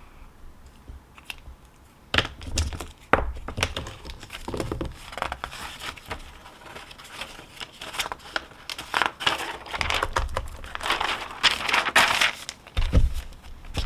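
Crinkling and rustling of handled material, mixed with sharp clicks and knocks. It starts about two seconds in and is densest near the end.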